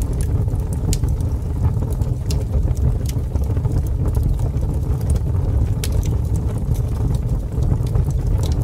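Ambient soundscape intro: a steady deep rumbling noise with scattered faint crackles and clicks, no instruments or voice.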